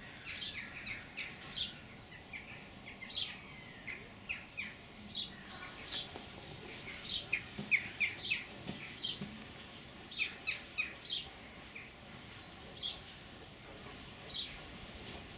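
Small birds chirping: many short, high chirps that each drop quickly in pitch, coming irregularly and sometimes in quick runs of three or four.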